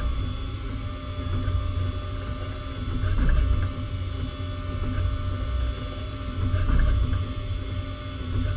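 CNC machining centre milling a small metal engine block: the spindle and cutter run continuously, a low rumble under several steady whining tones, swelling in loudness a few times as the cut goes on.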